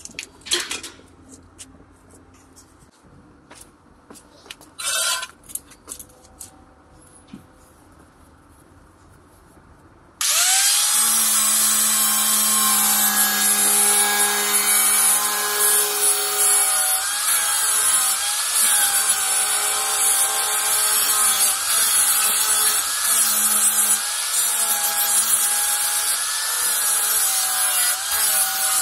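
A few scattered light clicks and knocks, then about ten seconds in an electric angle grinder starts up suddenly and runs loudly. Its disc grinds the paint off a dented car door panel, and the motor's whine wavers slightly as the disc is pressed against the metal.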